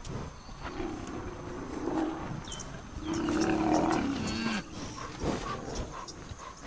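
Rhinoceros bellowing while defending its calf against a lion: deep moaning calls, short ones about one and two seconds in, then a louder call of over a second that drops in pitch at its end.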